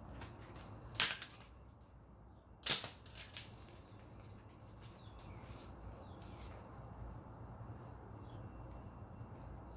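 Two sharp snaps about a second and a half apart, then light scraping and ticking, from electrical wire being worked through flexible metal conduit with a pull wire.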